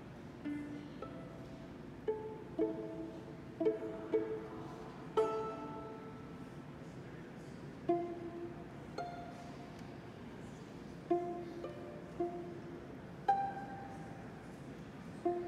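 Violin and viola playing sparse plucked (pizzicato) notes, single plucks and pairs with irregular pauses between them, each note dying away quickly.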